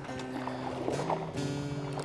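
Background music with held notes that change pitch in steps.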